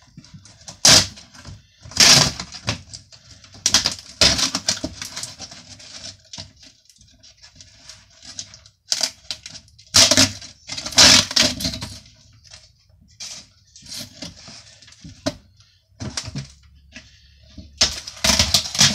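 Woven panel of an old bathroom shelf being ripped off its frame by hand: irregular bursts of crackling and tearing, with handling knocks as the shelf is turned.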